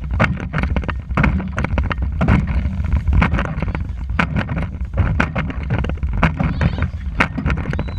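Dragon boat under way: paddles splashing and knocking in many quick, irregular hits a second, over a steady low wind rumble on the action camera's microphone.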